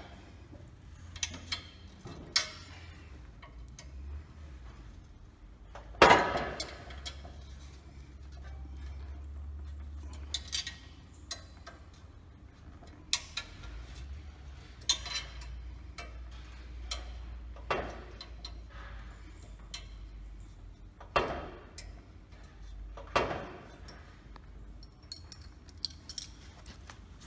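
Scattered metallic clinks and knocks of hand tools against the hub and bolts of a sawmill's circular blade as it is fitted, with one sharp knock about six seconds in the loudest.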